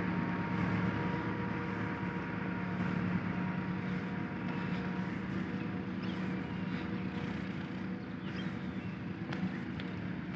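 Massey Ferguson 385 tractor's diesel engine running steadily, a constant hum with a faint whine above it.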